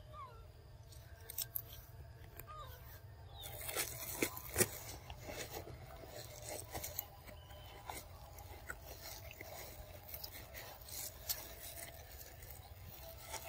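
Macaques handling and chewing pieces of fruit close by: scattered small crunches, clicks and rustles, with one sharper snap about four and a half seconds in.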